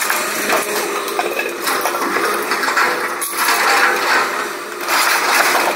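Scrap metal clattering and clanking without a break as pieces are handled and dropped, with the steady hum of an excavator engine underneath.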